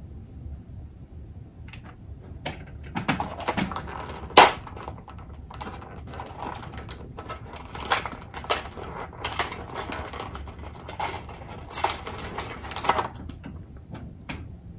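Hands handling electrical wiring parts: a run of small clicks and rustles as wire ends are twisted together and plastic fuse-holder and connector pieces are handled, with one sharper click about four and a half seconds in.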